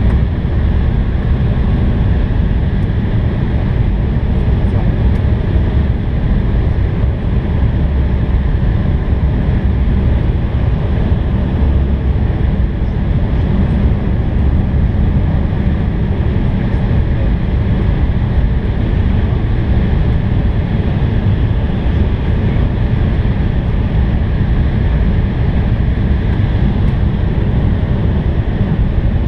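Steady cabin noise inside an Embraer 170 airliner on approach: the even rush of airflow and the wing-mounted General Electric CF34 turbofan engines running, heaviest in the low rumble.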